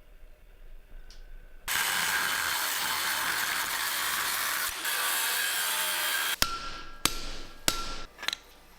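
A power tool working steel, a steady hissing noise lasting about four and a half seconds, then several sharp metallic strikes near the end.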